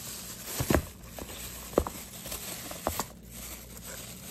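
Clear plastic wrapping crinkling and rustling as a hair-straightener brush is handled in its bag, with a few sharp knocks and clicks, the loudest a little under two seconds in.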